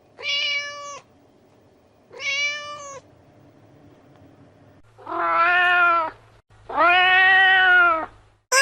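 Domestic cat meowing four times: two short, higher-pitched meows, then two longer, lower meows.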